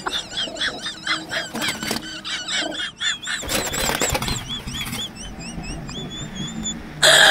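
Small birds chirping, short high notes repeated several times a second, with a brief burst of scuffling noise about three and a half seconds in as the kitten lunges at the pigeons.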